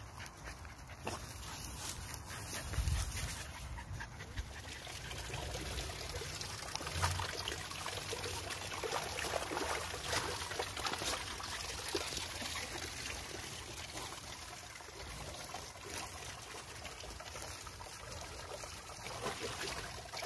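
Staffordshire bull terriers panting and rustling through hay and long grass, with many small crackles over a steady hiss.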